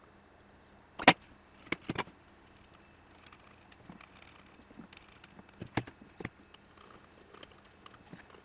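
Scattered sharp clicks and taps of small metal tools on a workbench during chip soldering work. The loudest comes about a second in, then a pair just before two seconds, and a few lighter ones near six seconds.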